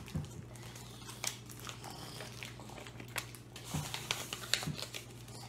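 Plastic blind-bag packaging and small toy figures being handled: scattered small clicks and crinkles with a few soft thumps, over a low steady hum.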